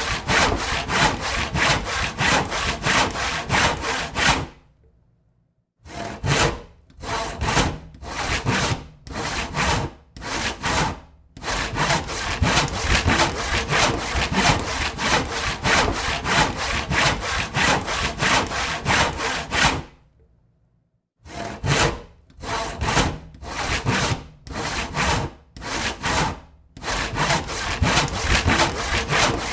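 Hand saw cutting wood with rapid back-and-forth strokes. It stops twice for about a second, then starts again with slower, separate strokes before settling back into the fast rhythm.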